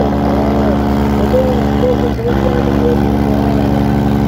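Heavy tractor diesel engines running steadily and loudly during a tractor tug-of-war, their note dipping briefly about two seconds in, with crowd shouts over them.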